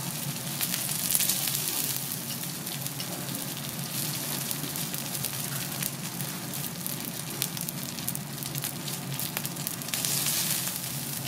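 Cubes of beef fat and sirloin sizzling on a hot teppanyaki steel griddle, a steady frying hiss with many small pops and clicks, swelling a little about a second in and again near the end.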